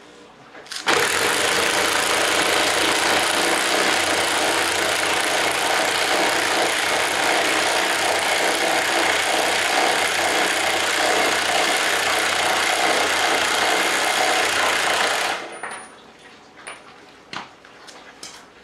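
EMERSON EM-244 corded electric impact wrench running steadily under load as it drives a scissor jack's screw to raise the car. It starts about a second in and stops a few seconds before the end, followed by a few light knocks.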